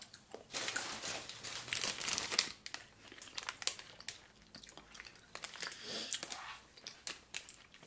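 A plastic Sour Patch Kids candy bag crinkling in irregular crackles as it is handled and held up.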